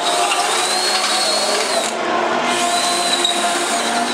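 Handheld power drill running in two bursts on fasteners at a race car's nose, its motor whine rising in pitch, with a short break about two seconds in.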